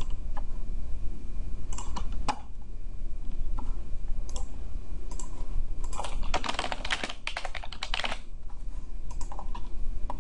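Computer keyboard typing: scattered single keystrokes, then a quick run of keys lasting about two seconds a little past halfway, over a low steady hum.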